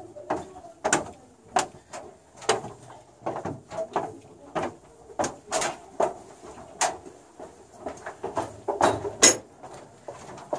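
Footsteps on a steel grating walkway and stairs: a steady walking run of sharp knocks, about two a second, with one louder step near the end.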